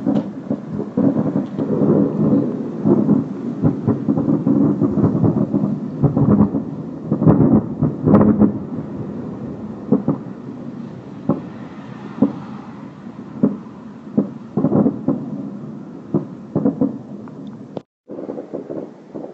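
A rapid, irregular series of low booms and thuds over a continuous rumble, described as sounding almost like fireworks. The sound drops out briefly near the end, then resumes.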